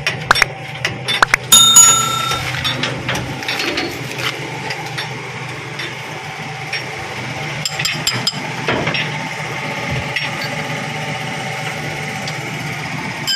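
Metal hand tools clinking and knocking against a lorry's leaf-spring hanger and wheel-hub parts, with one loud ringing metal strike about two seconds in and another near the end. A steady low hum runs underneath.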